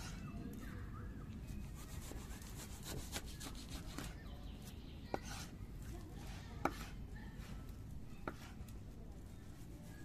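A few sharp knocks or taps, about four, spread irregularly over a steady low rumble, with light rubbing between them.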